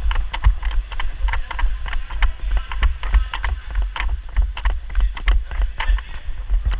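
A person running with a body-worn camera: footsteps and rattling gear make a quick, uneven run of sharp clicks and knocks, a few a second. Under them the microphone is buffeted into a pulsing low thumping.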